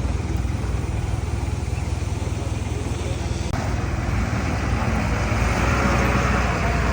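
Heavy diesel earthmoving machinery running with a steady low rumble. It turns harsher and louder about halfway through.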